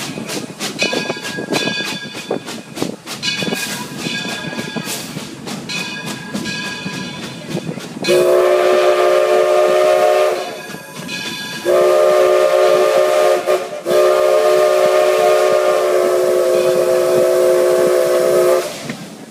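Old 3's steam locomotive chime whistle blowing three blasts: two of about two seconds and a final long one of about five seconds, a chord of several steady tones. Before the whistle, the moving train is heard with a high ringing tone repeating about once a second.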